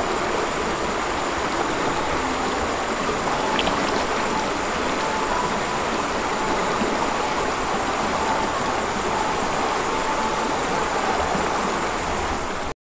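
Steady rushing of a flowing river, an even wash of water noise, cut off suddenly near the end.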